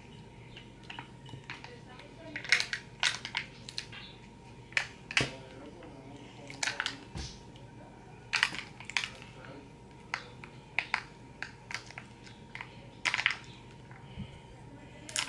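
Small plastic slime container being bitten and twisted at its lid, giving irregular clusters of short, sharp plastic clicks and crackles: the lid is stuck and won't come off.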